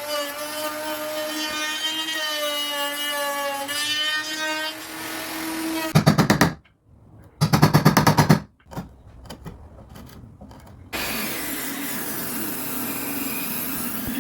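Woodworking power tools in use: a steady motor whine for the first six seconds, then two short loud bursts of very rapid strokes, and after a quieter stretch a steady whirring from near the end.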